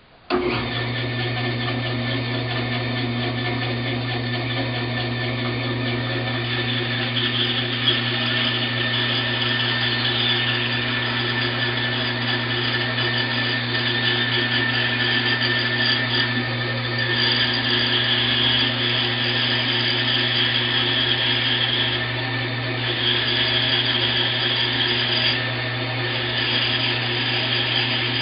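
A wood lathe comes on suddenly and runs steadily, spinning a 6-inch buffing wheel on a tapered spindle, with a steady motor hum under a higher hiss that swells and eases several times.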